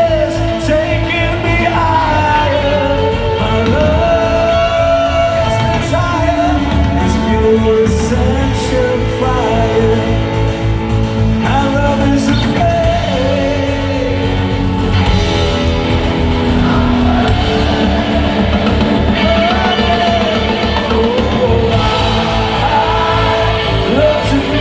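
Live rock band playing, with guitars, singing and a steady drum beat, loud and even throughout.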